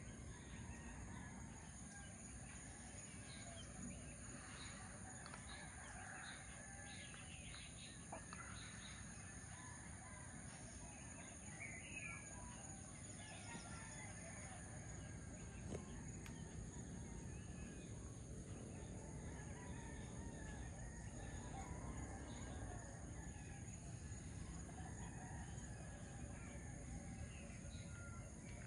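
Faint dawn chorus of roosters crowing and small birds chirping and calling, over a steady high-pitched insect drone.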